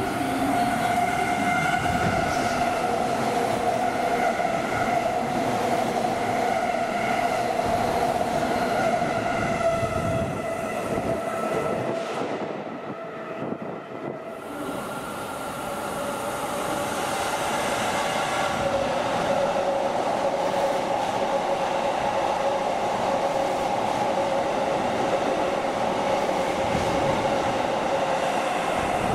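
Electric train running with a steady whine over its rolling and rail noise. The sound thins out briefly about twelve seconds in, then the whine comes back slightly lower and holds.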